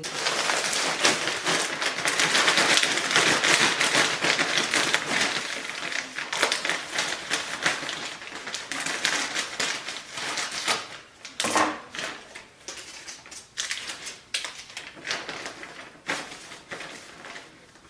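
Dense crackling and rustling of a plastic bag and loose potting soil being handled, made of many small clicks. It is loudest for the first several seconds, then becomes scattered rustles and clicks.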